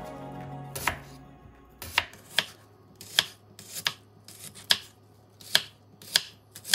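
Kitchen knife slicing half an onion into strips on a wooden cutting board: from about two seconds in, a crisp tap of the blade through the onion onto the board, about eight strokes in a steady rhythm of a little more than one a second.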